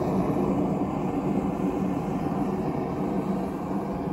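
Single-burner propane forge running at about 6 pounds of gas pressure: the burner makes a steady, low rushing noise.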